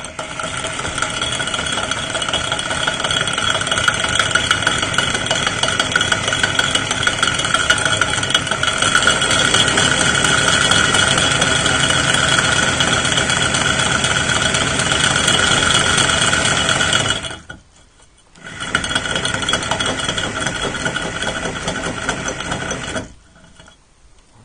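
Electric drill with a masonry bit boring through a ceramic toilet-tank lid to enlarge the hole: a steady motor whine with the bit grinding against the ceramic. It stops for about a second about three-quarters of the way through, runs again, and stops shortly before the end.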